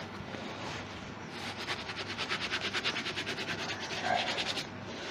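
Hand rubbing quickly over a turned wooden workpiece on the lathe: a fast, rhythmic scratching of about eight or nine strokes a second that starts about a second and a half in and stops near the end.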